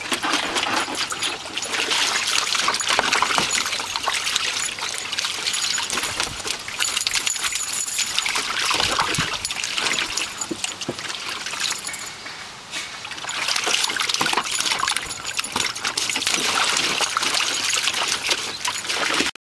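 A puppy wading and pawing through shallow water in a plastic kiddie pool, with steady splashing and dribbling that eases off briefly about two-thirds of the way in.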